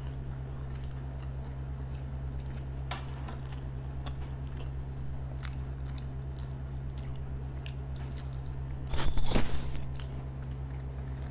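Close-miked chewing of burgers: soft wet mouth clicks and smacks over a steady low hum. About nine seconds in there is a loud, brief rustling burst.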